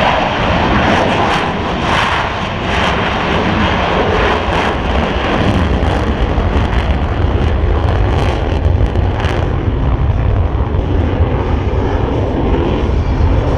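Blue Angels Boeing F/A-18E/F Super Hornet jets passing overhead: a loud, steady jet rumble with a crackly upper edge that softens about ten seconds in, while the deep rumble carries on.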